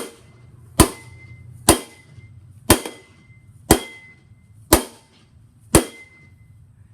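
Seven hard blows struck on a Shark Rotator vacuum cleaner, about one a second. Each is a sharp crack with a short ringing tail.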